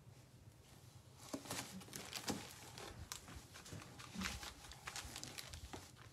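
Paintbrush dabbing and mixing acrylic paint on a palette: faint, irregular light taps and scratchy rustles that begin about a second in.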